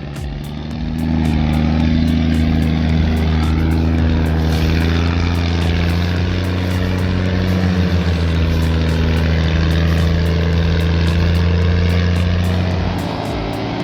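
Heavy vehicle engine running steadily under load, a low drone with slight shifts in pitch. It swells up about a second in and eases off near the end.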